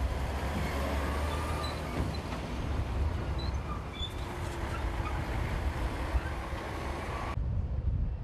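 Heavy dump trucks loaded with earth driving past on a dirt road: the low rumble of their diesel engines mixed with tyre and road noise. The higher hiss cuts off about seven seconds in, leaving the low rumble.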